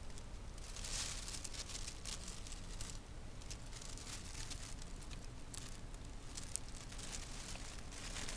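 Habanero pepper plant leaves rustling and brushing against the microphone in short irregular crackles as it pushes through the foliage, over a steady low hum.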